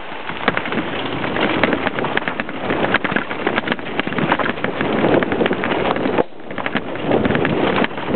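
Mountain bike riding fast down a rough dirt trail: tyres on dirt and the bike clattering with many sharp knocks over the bumps, with wind on the microphone. It goes briefly quieter about six seconds in.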